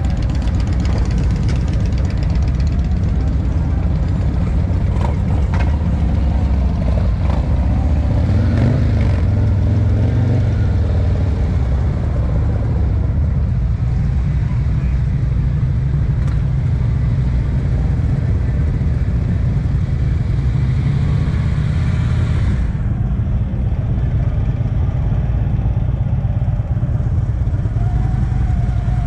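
Continuous low rumble of motorcycle engines running around a crowded rally parking lot, steady throughout, with the higher hiss above it thinning out about two-thirds of the way through.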